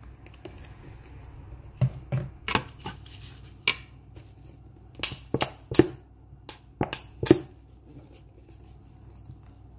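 Kitchen handling sounds: about a dozen sharp clicks and knocks from a honey bottle and a metal spoon in a wooden bowl as honey is poured onto the spoon. They come in two clusters, the loudest a little before and after the seven-second mark.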